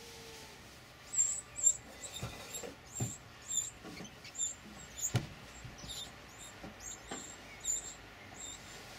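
Winter wren nestlings begging: a run of short, thin, very high squeaks, about two a second, starting about a second in as an adult feeds them at the nest-box hole. A few low knocks sound under the calls.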